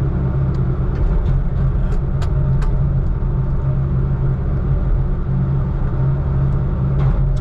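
Heavy diesel engine running steadily at a low, even drone, with a few faint clicks over it.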